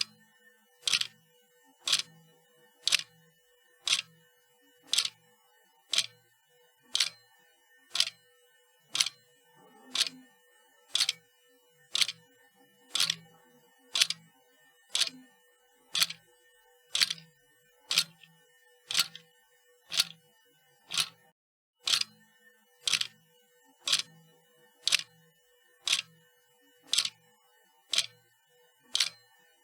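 A sharp mechanical click repeating steadily about once a second.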